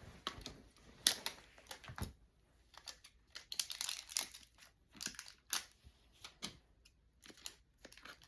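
Packaging wrapper crinkling and crackling in irregular bursts as it is handled and cut open, with a few sharper clicks among them.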